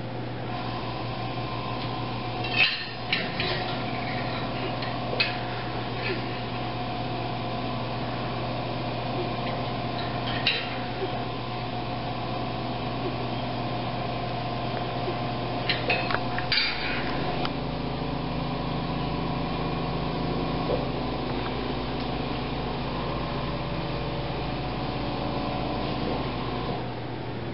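A steady electrical hum made of several tones, its low part shifting about 17 s in, with a few sharp clicks and clinks of small metal surgical instruments such as forceps and scissors, the loudest about 2 s and 10 s in and a cluster around 16 s.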